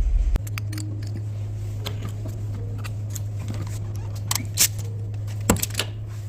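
Low rumble of the Cadillac Escalade's V8 cuts off suddenly about half a second in, leaving a steady low hum and scattered light clicks and clinks of tools being handled.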